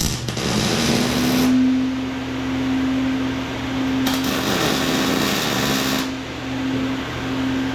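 An electric power tool switches on with a click and its motor spins up to a steady whine. Harsh noise from the tool working metal grows louder and fades several times over it.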